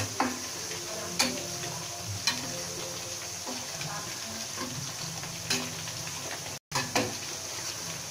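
Oil sizzling steadily as chicken in a galangal spice batter deep-fries in a stainless steel wok. A metal ladle knocks sharply against the wok several times at irregular intervals as the chicken is stirred.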